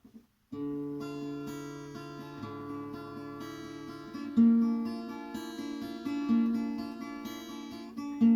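Acoustic guitar playing the instrumental introduction to a Russian courtyard song, starting about half a second in, with stronger accented notes about four, six and eight seconds in.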